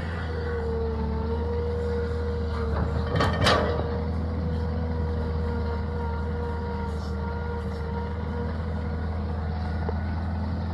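Excavator's diesel engine running steadily, with a steady whine over the low hum. A brief hiss about three seconds in.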